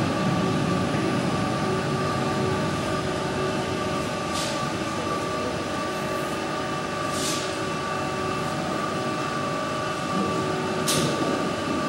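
CairnGorm Mountain funicular railway car running slowly up its track into the station: a steady hum with several held tones, and three brief hisses.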